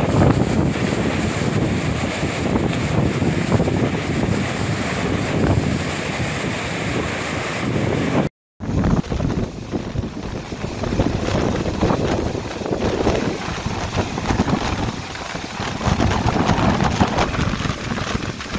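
Floodwater rushing through a dam's opened automatic gate and over the spillway, a steady roar of water with wind buffeting the microphone: the reservoir is full and discharging. The sound cuts out for a moment a little under halfway through, then resumes.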